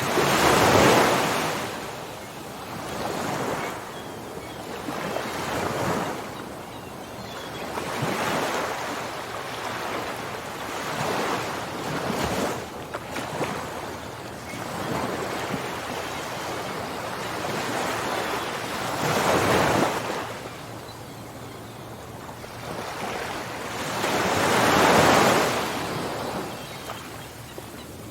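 Ocean waves breaking and washing on the shore, in repeated swells of surf noise; the strongest break about a second in, another near the two-thirds mark and the loudest again about three seconds later.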